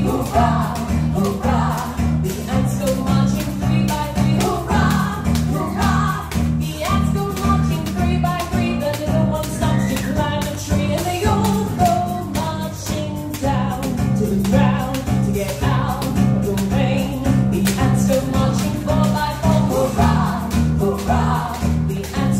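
Song with singing over a steady, rhythmic bass beat.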